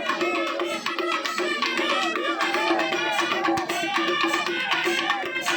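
Music: a sung melody over a steady held drone, with hand-drum beats.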